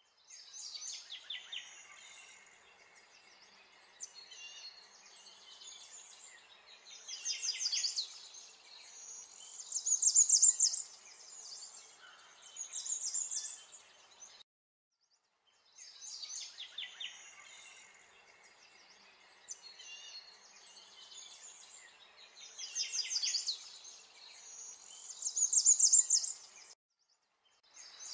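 Birdsong recording: birds chirping and trilling over a faint steady hiss. The same stretch of about fourteen seconds is played twice, with a short break between.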